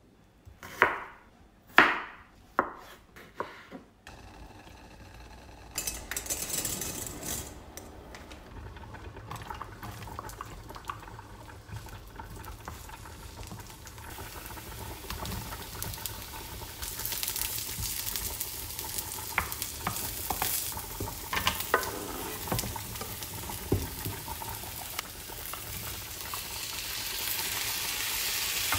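A kitchen knife chopping onion on a wooden cutting board, about four sharp knocks, then garlic frying in oil in a nonstick wok, sizzling and stirred with a wooden spatula. The sizzle starts about six seconds in and grows louder in the second half, with onion, mushrooms and tomato in the pan.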